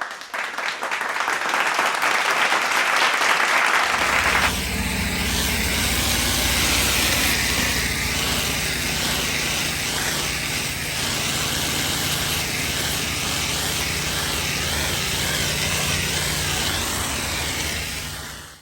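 Pressure washer at work on concrete: a steady hiss of high-pressure water spray, joined about four seconds in by the steady low hum of the unit's engine running under the spray, fading out at the end.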